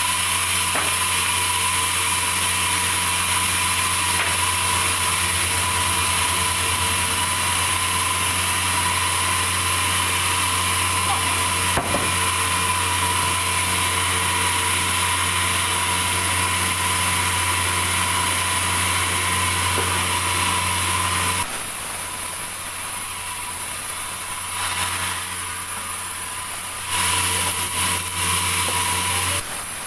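Sawmill saw running under load through a large meranti log: a loud, steady machine hum with a hiss from the cut. About 21 seconds in the cutting noise drops to a quieter running hum, comes back for about two seconds near the end, then drops again.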